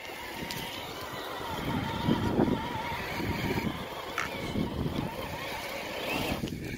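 Traxxas TRX-4 RC crawler driving on a dirt trail: its small electric motor and gearbox whine, rising and falling with throttle, over the scrabble of its tyres.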